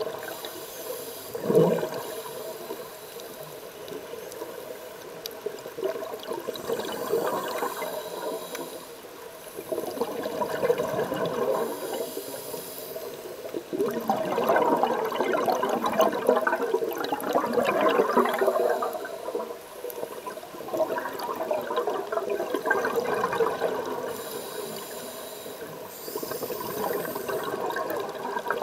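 Scuba regulator exhalation bubbles gurgling and crackling underwater, in bursts of a few seconds between quieter breaths.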